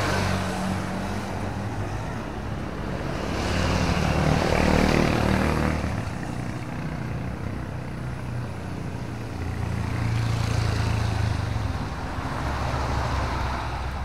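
Road traffic on a wet street: several vehicles pass one after another, engines running and tyres hissing on the wet road, the loudest pass about four to six seconds in.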